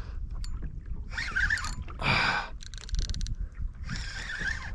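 Sounds of a bull redfish being fought from a kayak: four short bursts of splashing and sloshing, with a quick run of rapid clicks about three seconds in.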